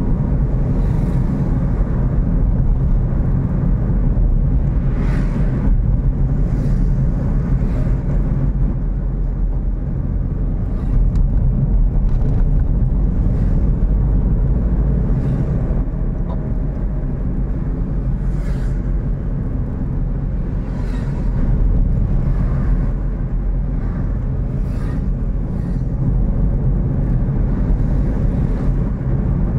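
Steady engine and road-tyre rumble of a car driving along a road, with brief rushes of noise every few seconds.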